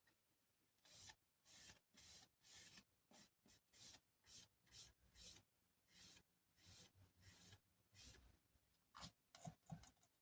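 Faint brush strokes spreading a top coat of Mod Podge over a small wooden chopping board: short swishes about twice a second, with a couple of light taps near the end.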